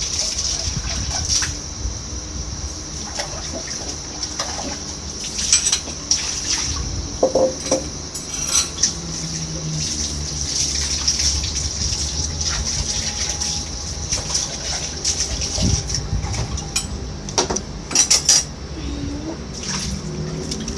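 Water sloshing and running in a basin with irregular clinks and clatters of dishes and utensils, as things are washed by hand.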